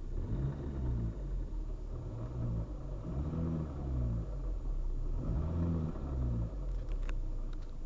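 Lada Priora's four-cylinder engine and five-speed manual gearbox running, the pitch rising and falling three times. It is the gearbox noise that the owner puts down to worn input or output shaft bearings, or both.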